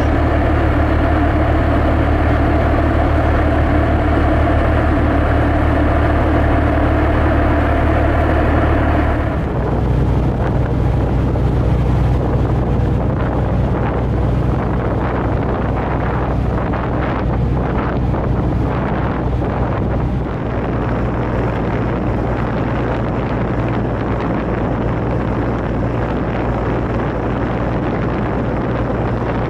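A river boat's engine running with a steady low drone, with water and wind noise over it. The drone changes character abruptly about a third of the way in and again about two-thirds in, where the footage cuts between shots.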